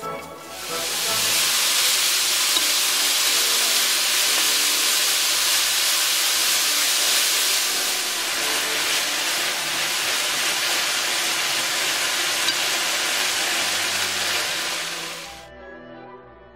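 Soy-marinated beef sizzling loudly as it is stir-fried in a frying pan, being cooked down until its liquid is gone, with soft background music underneath. The sizzle begins about a second in and cuts off suddenly near the end.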